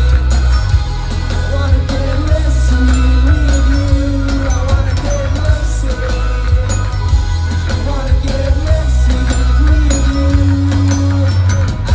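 Indie rock band playing live through a festival PA: electric guitar, bass and drums, loud and heavy in the low end.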